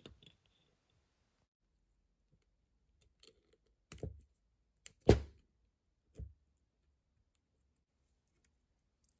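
A handful of short, sharp metallic clicks as the starter motor's brush springs are levered into place on the brush holder, the loudest about five seconds in.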